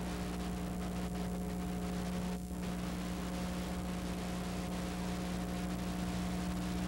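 Steady electrical hum with several constant tones over an even hiss, and no other sound.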